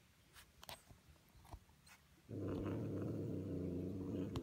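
Bengal kitten growling low and steadily for about two seconds, starting about halfway in after a few faint taps: a possessive growl, guarding a toy from another cat.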